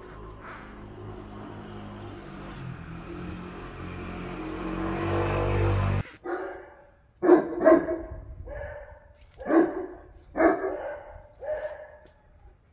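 A dog barking repeatedly, about eight sharp barks in the second half, several in quick pairs. Before that, a low hum grows louder and cuts off abruptly about six seconds in.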